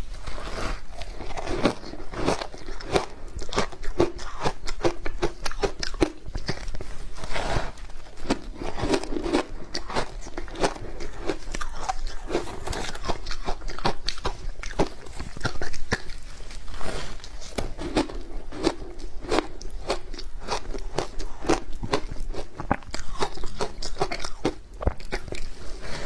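Close-up crunching and chewing of hard frozen ice layered with matcha tea and milk powder: big bites that crack and crackle, then are crushed in the mouth, over and over.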